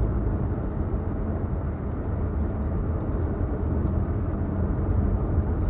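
Steady low rumble of road and engine noise, as heard inside a moving car.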